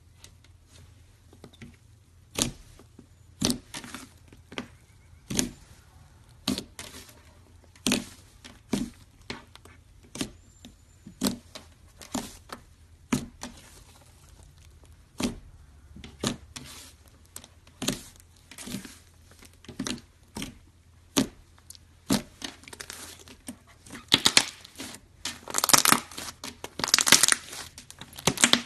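Pink slime being squeezed and pressed by hand, giving sharp popping clicks about once a second, then denser, louder crackling pops in the last few seconds.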